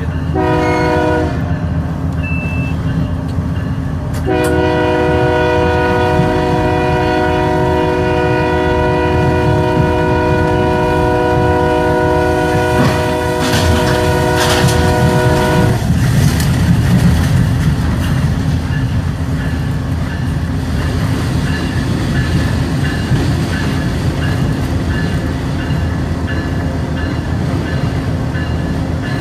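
Locomotive horn sounding on board a moving train: one short blast, then a long blast held for about eleven seconds, over the steady rumble of the locomotive and its wheels on the rails.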